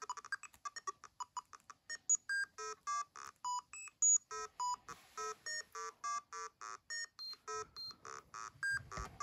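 Fibonacci Machine's electronic tone generator playing a random string of short buzzy beeps, each at a Fibonacci-number pitch in hertz, hopping between low and high notes. The beeps come very quickly for about two seconds, then settle to longer notes about three a second with short gaps.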